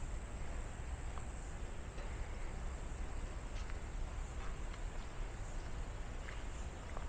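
Insects giving a steady high-pitched drone over a low rumble, with a few faint short chirps.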